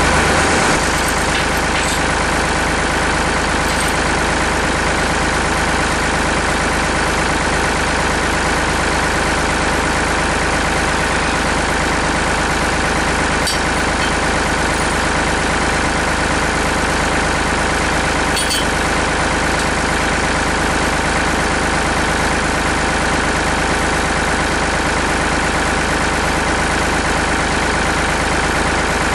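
Farm tractor engine running steadily and loudly at an even speed, with no revving.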